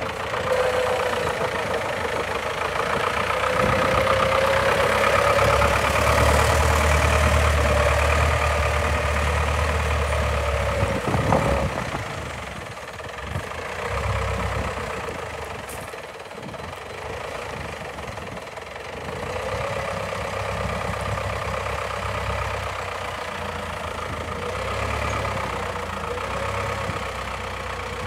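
Desta forklift's engine running as it is driven, the pitch rising and falling with the throttle, with one sharp knock about eleven seconds in. It then drops to a lower, steadier level as the forklift moves away.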